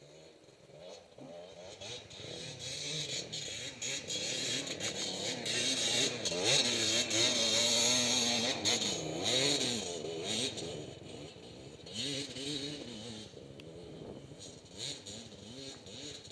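Dirt bike engine revving hard and unevenly as the bike climbs a steep slope, its pitch rising and falling with the throttle. It grows louder toward the middle as the bike comes close, then fades with a few more bursts of throttle.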